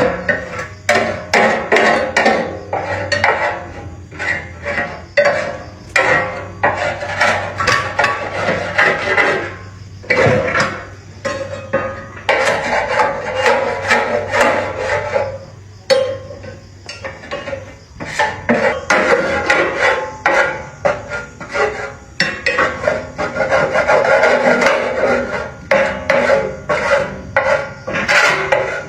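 Repeated rasping hand strokes of a tool scraping or abrading a hard surface, about two to three strokes a second, with a few short pauses.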